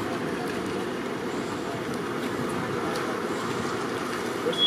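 Steady street noise of idling vehicles and traffic with a low rumble. A thin, steady high tone starts near the end.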